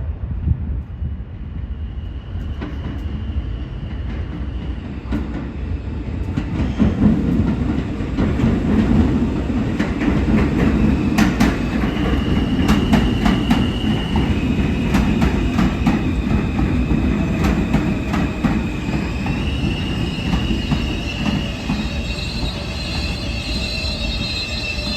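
R160 subway train running through the station: a rumble that builds about six seconds in, a quick run of wheel clacks over rail joints in the middle, and thin, steady wheel squeal throughout.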